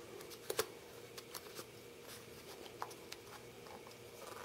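A small metal case being handled: a few faint, scattered clicks and light handling noise.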